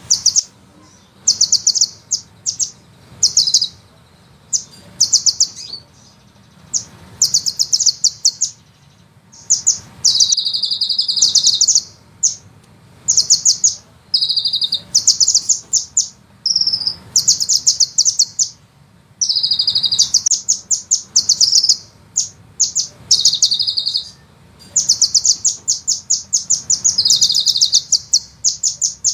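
Sunbird song: rapid, high-pitched rolling trills in repeated bursts of about half a second to two seconds, separated by short pauses, with a few longer dense trills.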